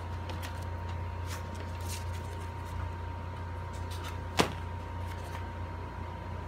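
Stiff cardstock petals of a paper flower being pressed and handled, giving faint rustles and light taps, with one sharp click about four and a half seconds in. A steady low hum with a faint high whine runs underneath.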